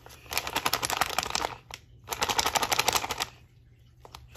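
Plastic bag crinkling as it is handled, in two stretches of dense rapid crackling about a second long each, with a short break between.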